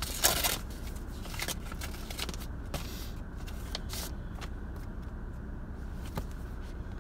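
Greeting card being handled and opened: a paper rustle just after the start, then a few short, soft crinkles and taps of card stock.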